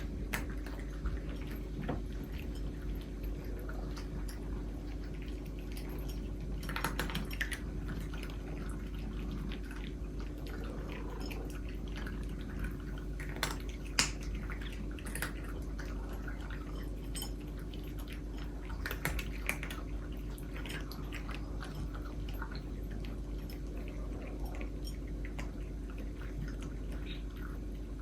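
Several cats crunching dry food, with scattered small clicks and occasional knocks against bowls, over a steady low hum.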